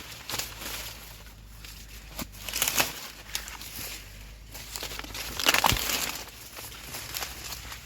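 Dry corn leaves and husks rustling and crinkling as ears of corn are snapped off the stalks by hand, with several sharp snaps, the loudest a little past halfway.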